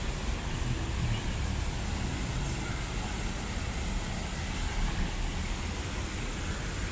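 Steady hiss of a fountain's water jets splashing, over a continuous low rumble of city traffic.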